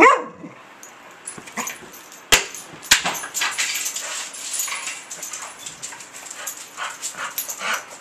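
A pet dog yipping and whimpering in rough play, with one loud yip right at the start, two sharp knocks a little over two and about three seconds in, and short, softer whimpers and scuffles after that.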